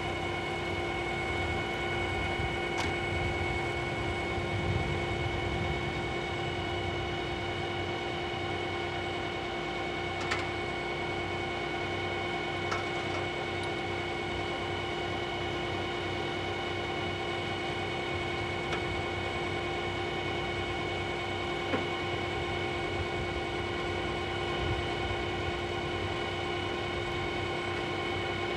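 Heavy truck's diesel engine idling with a steady high whine over it. A few faint metallic clicks are heard as hydraulic hose couplings are handled.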